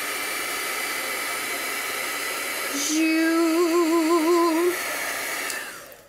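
Handheld craft heat gun blowing steadily, a rush of air with a faint motor whine, winding down and cutting off near the end. Midway a person hums a wavering note for about two seconds over it.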